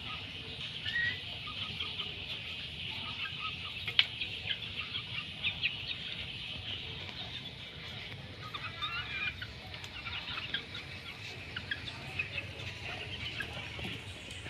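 Chickens clucking and calling, many short high calls overlapping throughout, with a single sharp knock about four seconds in.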